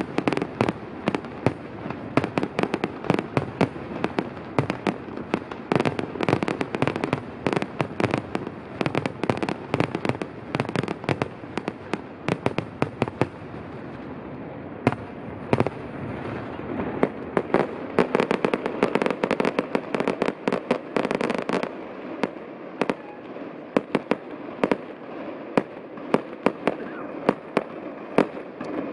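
Aerial fireworks display: a dense, rapid barrage of shell bursts and crackling that thins to scattered bangs over the last several seconds.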